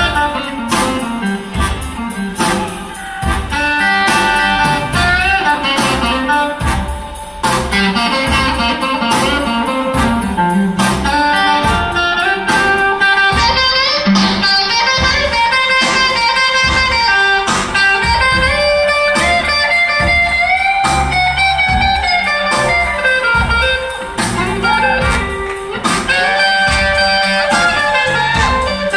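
Live blues band playing an instrumental passage: an electric guitar solos with bent, gliding notes over a steady drum beat and bass.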